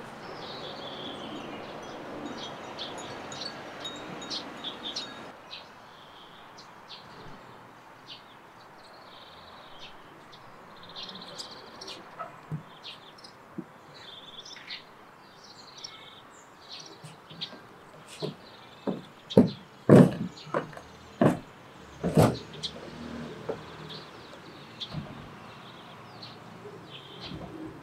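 Small birds chirping on and off. About two-thirds of the way in comes a run of some eight sharp knocks over about four seconds, louder than the birds.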